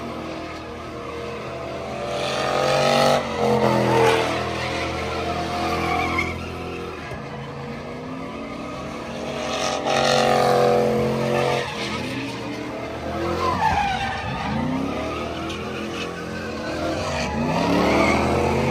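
Pickup truck engine revving hard in repeated surges, rising and falling in pitch, as the truck is driven around an off-road dirt pit with its tyres sliding.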